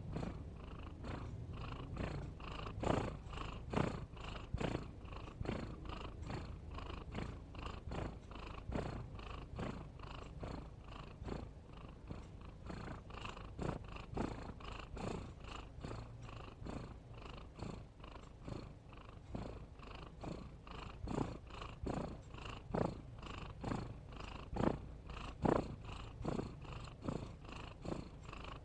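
Domestic cat snoring: a low rhythmic breathing rumble, with a stroke roughly every second.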